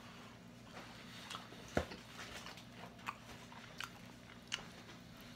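A person biting and chewing fried chicken on the bone: soft wet mouth sounds with scattered sharp clicks, the loudest a little under two seconds in.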